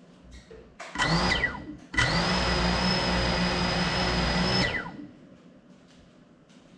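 Cinelog35 cinewhoop drone's brushless motors and ducted propellers spinning up while the drone rests motionless: a short burst about a second in that rises and falls away, then a steady high whine for nearly three seconds that winds down before the five-second mark.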